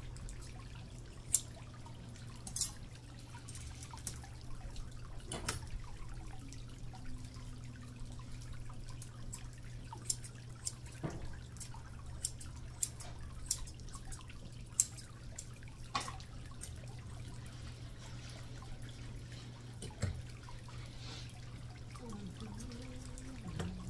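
Grooming scissors snipping through a dog's face hair, sharp irregular clicks every second or so, over a steady low hum.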